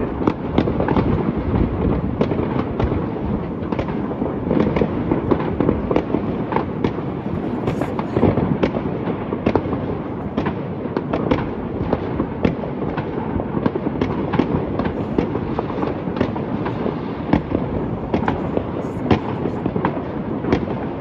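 Many fireworks and firecrackers going off at a distance without a break: a continuous rumble of overlapping bangs with frequent sharper cracks on top.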